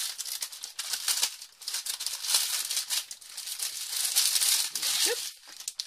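Clear plastic packaging crinkling and rustling as it is handled and opened, with the rattle of small round resin diamond-painting drills shifting inside their little bags.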